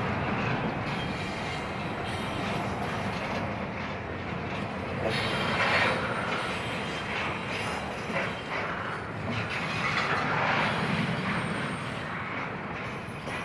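Union Pacific intermodal freight train rolling past: a continuous rumble and clatter of steel wheels on rail, swelling louder about five seconds and again about ten seconds in.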